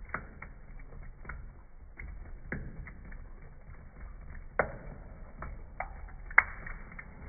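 A thin stream of tap water running into a stainless-steel sink as a cat laps at it, with scattered wet clicks and small splashes from its tongue over a low, steady hiss. The loudest clicks come about four and a half and six and a half seconds in.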